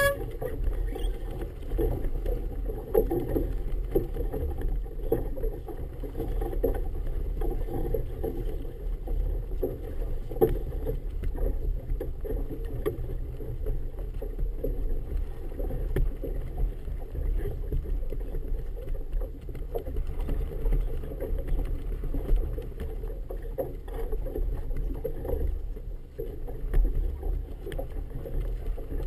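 Steady low rumble of wind and choppy water around a boat, rising and falling irregularly, with no distinct pitched engine note.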